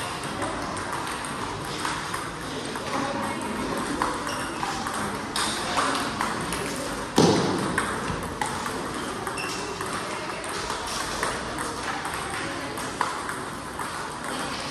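Table tennis multiball drill: a quick, continuous run of celluloid-plastic ball clicks as balls are fed and struck with bats and bounce on the table. There is one louder thud about halfway through.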